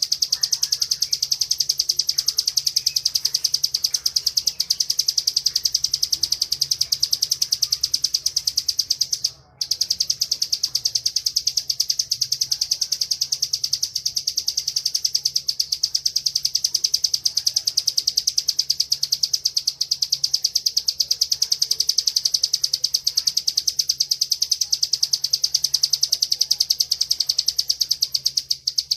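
Bar-winged prinia (ciblek) singing its 'ngebren' song: a rapid, unbroken, high buzzing trill that stops for a moment about a third of the way in, then carries on.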